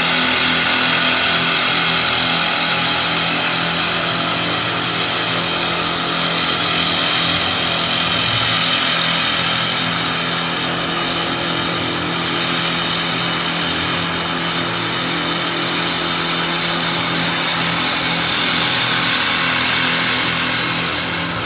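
Double-spindle CNC wood lathe turning two wooden spindles at once: a steady hiss of the cutters shaving the wood over a low, even machine hum.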